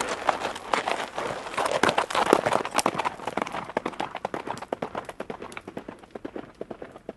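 Horses galloping: many fast hoofbeats together, loudest a couple of seconds in, then thinning out and fading as the horses move away.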